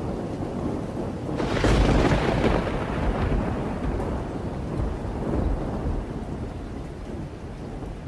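Thunder: a low rumble that breaks into a loud crack about a second and a half in, then rolls on and fades away over the next several seconds.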